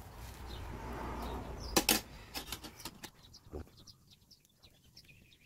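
Rustling handling noise with two sharp clicks a little before two seconds in, then a few lighter clicks and faint bird chirps in the background.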